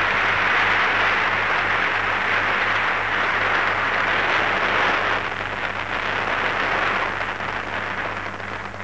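Large hall audience applauding, a long, steady burst of clapping that tapers off near the end, on an old film soundtrack with a steady low hum underneath.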